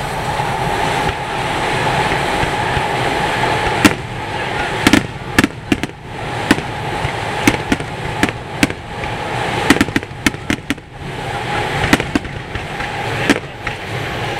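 Aerial firework shells bursting: after a few seconds of steady background noise, a rapid run of sharp bangs and cracks begins about four seconds in and keeps going.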